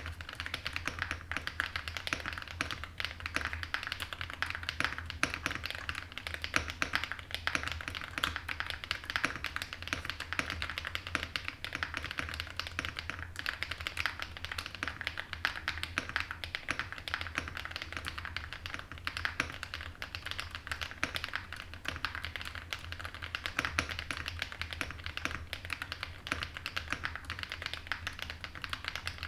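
Continuous fast typing on a zoomTKL mechanical keyboard with an aluminum plate, stock Akko Snow Blue Grey switches and Osume Winterglow Eve keycaps: a dense, unbroken stream of key clacks. A faint steady low hum sits underneath.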